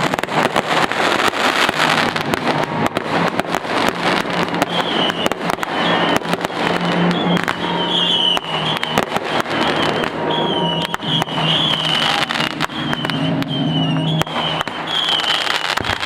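Fireworks going off in quick succession: dense crackling and banging with no pause. From about five seconds in, a high warbling whistle runs over the bangs.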